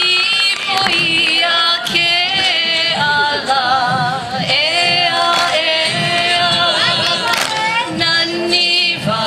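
Voices singing a Hawaiian song with a wavering, yodel-like pitch, over a low recurring beat.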